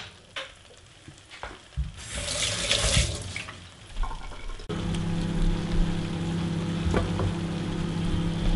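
Curry sizzling softly in a nonstick pan, with a couple of light taps. About halfway through a steady hum over a rushing noise starts suddenly and carries on.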